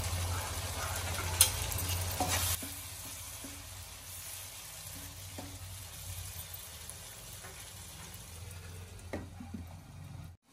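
Spatula stirring flat-bean and tomato curry in a nonstick wok over a steady sizzle. The scraping stirring is loudest for the first couple of seconds, then the frying sizzle carries on more quietly with an occasional knock.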